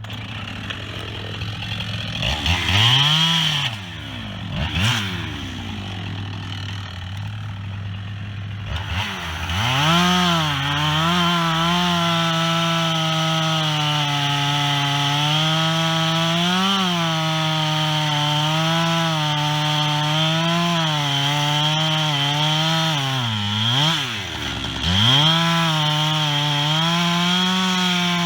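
Chainsaw revved a few times, then held at full throttle cutting into wood from about ten seconds in. Its pitch sags and recovers as the chain loads up in the cut, with a deeper drop near the end.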